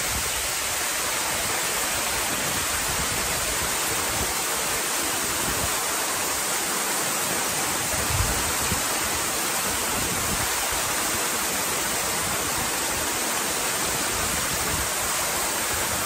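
Large waterfall pouring down a rock cliff, heard from close range at its base: a steady, unbroken rush of falling water.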